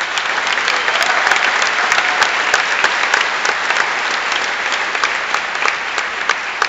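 A large audience applauding loudly, many hands clapping. The applause swells in the first second and eases slightly toward the end.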